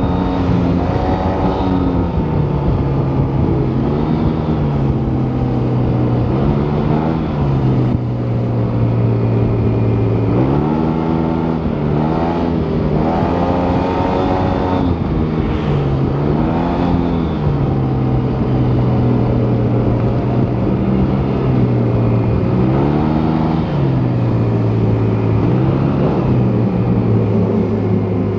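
Yamaha T-Max 530 maxi-scooter's 530 cc parallel-twin engine through its stock exhaust, under way. The engine pitch climbs and falls back again and again as the throttle is opened and eased off, with stretches of steady running between.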